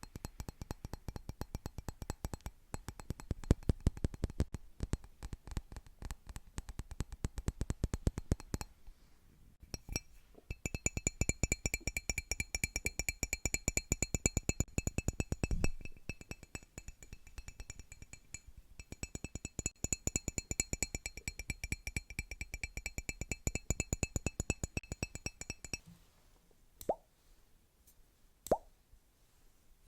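Rapid ASMR tapping on objects, at times with a steady ringing tone over the taps, then a few single plops near the end.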